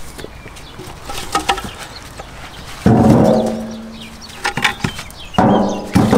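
Two heavy metre-long firewood logs dropped into a metal wheelbarrow, each landing with a sudden clang that rings on and fades over about a second. Smaller knocks of wood on wood come between them.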